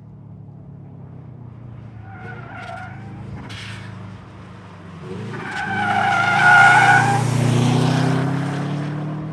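Subaru WRX engine running as the car corners fast and erratically, its tyres squealing. A short squeal comes about two seconds in, then a longer, louder one from about five and a half seconds, with the engine note rising under it near the end.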